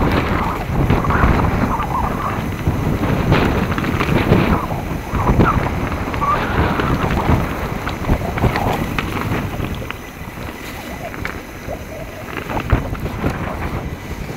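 A mountain bike riding fast down a dirt singletrack: tyre noise and frequent knocks and rattles as it runs over the rough ground, with wind rushing over the microphone. It gets somewhat quieter about ten seconds in.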